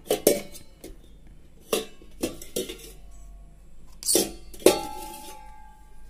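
Renberg Steelix stainless steel tope pots clinking and knocking against each other and the floor as they are unstacked and set down. Near the end one pot is struck and rings with a steady metallic tone for over a second.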